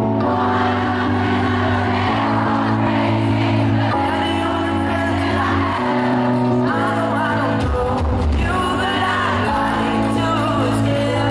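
Live pop-rock band playing loudly through a concert PA, heard from the audience: electric guitars, bass and drums under a sung vocal line, with fans shouting and whooping.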